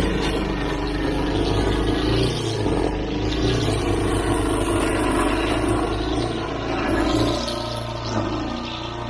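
Gas walk-behind lawn mower engine running steadily while cutting tall grass, its note wavering a little as the load changes.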